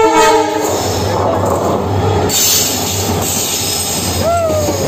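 A diesel locomotive sounds a short horn blast, then it and its passenger coaches roll past close by with a steady low engine hum and continuous rumbling wheel noise on the rails.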